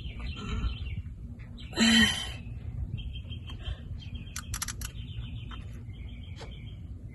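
A small bird chirping in repeated short trills of high notes, with a brief louder clatter about two seconds in.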